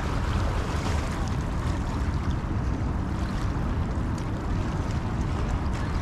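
Wind buffeting the microphone in a steady low rumble, with water lapping against the shoreline rocks.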